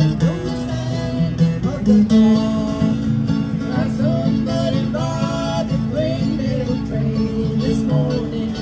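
A live band plays a country song through a PA, with acoustic guitar to the fore.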